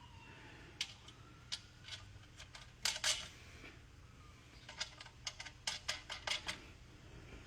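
Small metal parts clicking and clinking as the bolts and washers of a three-piece racing wheel are handled: a scattered run of sharp clicks, a short pause, then a quicker cluster of clicks.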